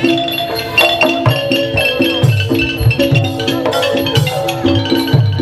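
Likay stage music from a Thai traditional ensemble: a wooden xylophone melody over drums.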